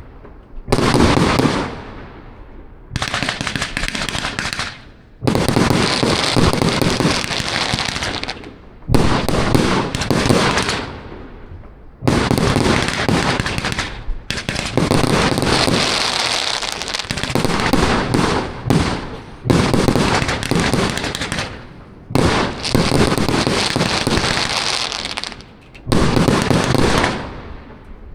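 Riakeo Miraculous RKD-24019 618-shot firework cake with 20, 25 and 30 mm tubes firing: rapid runs of shots and bursting crackle, each lasting a few seconds, with short lulls between them.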